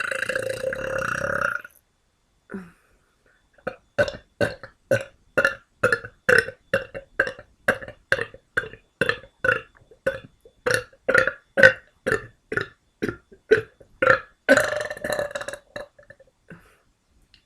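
A person burping on purpose. A long burp trails off, then after a short pause comes a rapid string of short burps, about two or three a second, ending in one longer drawn-out burp.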